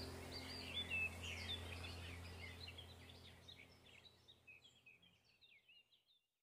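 Faint birds chirping and twittering over a low steady hum, both fading away to silence about five seconds in.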